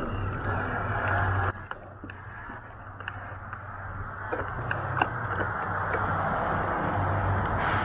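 Vehicle noise: a steady low hum under a broad wash of traffic-like noise. It drops off suddenly about a second and a half in, then slowly builds back up, with a few light clicks.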